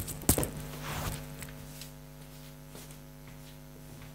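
Steady electrical mains hum on the recording, with a few short knocks and rustles in the first second or so.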